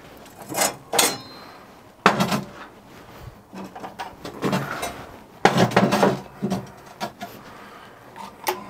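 Workshop handling noises: a run of knocks and clatters as hard objects, including a heavy block, are picked up, shifted and set down on a bench, with the loudest cluster of knocks about five and a half to six seconds in.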